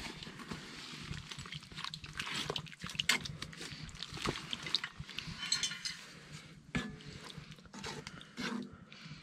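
Metal ladle and spoons clinking and scraping against a cast iron stew pot, a run of irregular clicks and scrapes.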